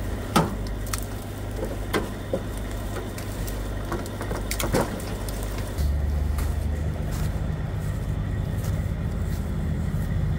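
Heavy wrecker tow truck's diesel engine running steadily in the background, with a few sharp cracks of brush or twigs in the first half. The engine drone grows louder about six seconds in.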